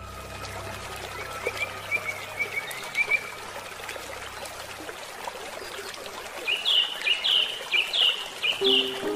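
Water trickling steadily, as from a small stream, with a bird calling over it: a quick run of soft high chirps a couple of seconds in, then about six louder, downward-sliding notes near the end.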